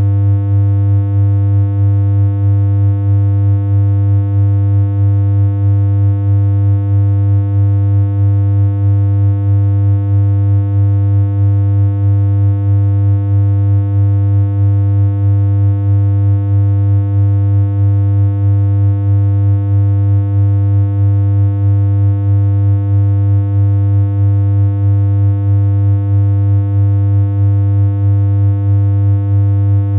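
Synthesized electronic hum: a steady, unchanging low drone with a strong low tone and a stack of fainter higher overtones, its loudness pulsing slightly at a regular rate.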